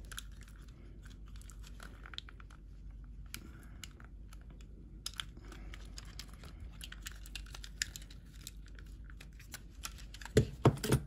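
Small plastic clicks and creaks as fingers work the rocker caps of an early-style Mercedes power seat switch, trying to pry them up. Near the end come a few louder knocks as the switch assembly is handled and set down on the bench.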